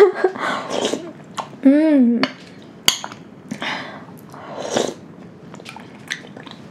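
A person eating soup from a metal spoon. About two seconds in there is a short hummed "mmm" of enjoyment that rises and falls in pitch. Near three seconds the spoon clicks once against the bowl, followed by soft sipping and chewing from the spoon.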